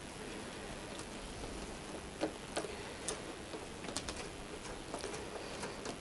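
Hand ratchet clicking as it loosens an 8mm bolt on a motorcycle's clutch master cylinder clamp: light, irregular clicks.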